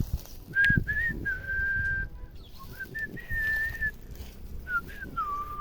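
A person whistling a short tune: three phrases of a few notes each, with brief pauses between them. A few soft knocks sound under the whistling.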